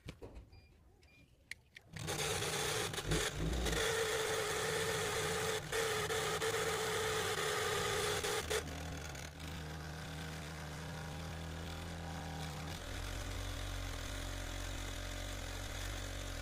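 Small electric motor of a homemade cardboard mini generator, taken from an old printer, starting about two seconds in and running steadily with a hum. A little past halfway it turns quieter and lower, and it drops lower again near the end.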